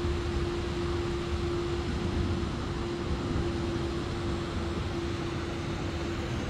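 Distant jet aircraft engine noise: a steady rush with a constant mid-pitched hum running through it.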